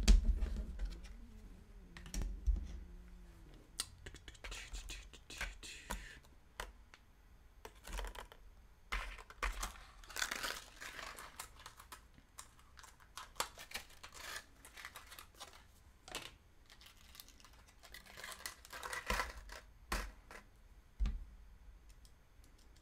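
3D-printed plastic prop parts and hand tools being handled on a workbench: scattered clicks, knocks and short scrapes as the parts are fitted together and set down.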